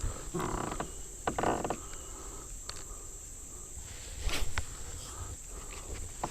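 Insects droning steadily at a high pitch, with a few short rustles and knocks mixed in.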